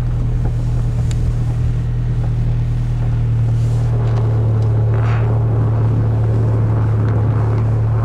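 Car engine and road noise heard from inside the cabin: a steady low drone with a little rushing noise, slightly louder from about halfway through.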